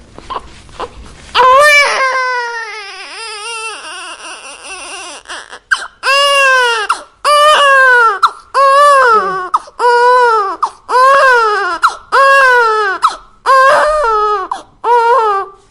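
Newborn baby crying. After a brief quiet breath comes one long wail that trails off, then a steady run of about eight short cries, each rising and falling in pitch, a little over a second apart.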